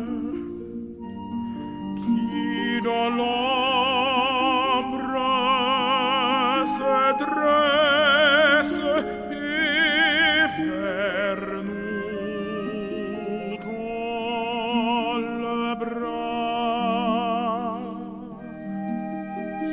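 Slow classical music: an operatic solo voice singing long held notes with wide vibrato over sustained accompaniment.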